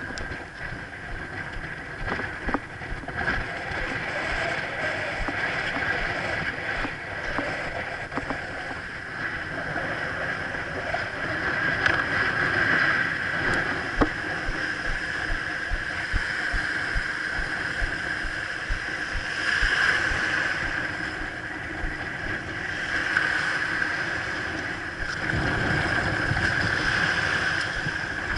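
Wind buffeting the action camera's microphone as a steady rushing noise, with surf washing up on the beach. Near the end, water rushes past the windsurf board as it gets under way.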